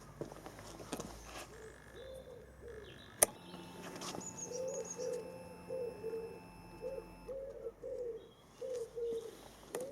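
A bird cooing, repeated short low notes in phrases. A single sharp click comes about three seconds in, and a faint steady tone runs for a few seconds in the middle.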